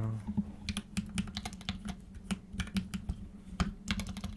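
Typing on a computer keyboard, an irregular run of key clicks played as keyboard ASMR.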